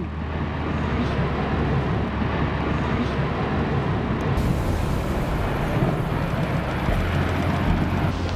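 Steady rush of wind and water noise with a constant low engine-like hum underneath.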